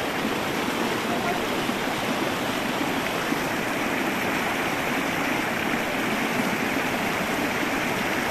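Fast, shallow mountain river rushing steadily over rocks and boulders.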